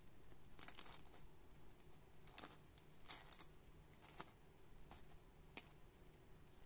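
Faint, scattered light clicks and taps, about half a dozen spread over a few seconds, over a low steady hum.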